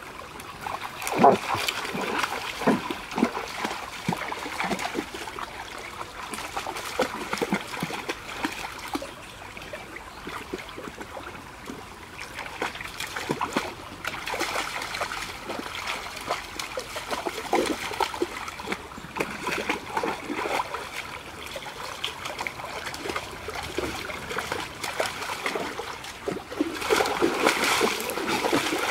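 Dogs, a German shepherd and a black long-haired dog, wading and splashing through a shallow creek, their legs and muzzles churning the water over the stream's steady trickle. One sharp splash stands out about a second in, and the splashing grows louder and busier near the end.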